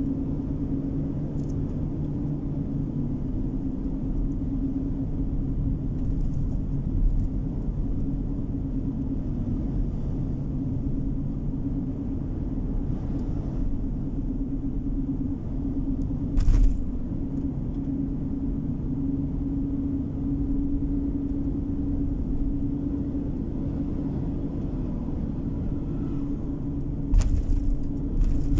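Road and engine noise of a car driving, heard inside the cabin: a steady low drone with a constant hum. A few short knocks break it, once about seven seconds in, once around sixteen seconds and several near the end.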